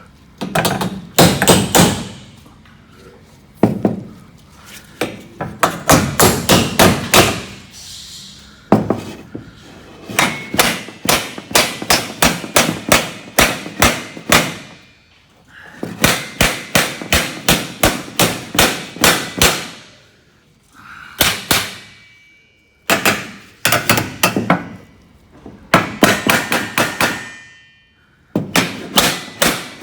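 Hammer blows on a hollow metal door frame, in quick runs of strikes about three or four a second separated by short pauses. Some runs have a metallic ring.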